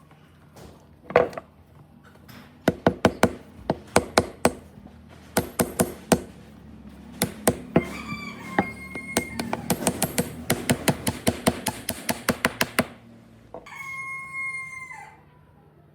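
Runs of sharp hammer strikes on wood, some at about three a second and a faster run of about five a second. A short pitched whine about eight seconds in and a longer one near the end that drops in pitch as it stops.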